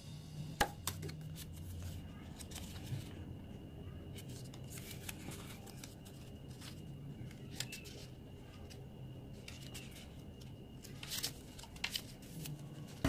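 Paper pages of a small handmade journal being handled and turned: soft rustles and light taps, with a cluster of page-turning rustles near the end, over a low steady background hum.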